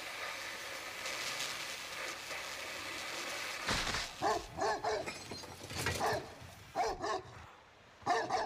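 A gas welding torch hisses steadily. After a few seconds a dog starts barking in short, separate barks, about eight of them with pauses between.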